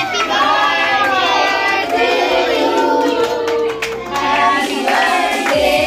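A group of voices singing together, with hand-clapping.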